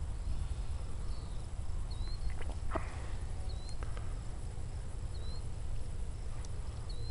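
Outdoor ambience with a steady low rumble and a bird's short high chirp repeating about every second and a half, plus a few faint clicks around the middle.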